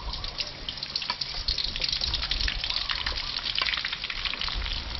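Cut shallots sizzling in hot frying oil as they are added bit by bit, a steady dense crackle.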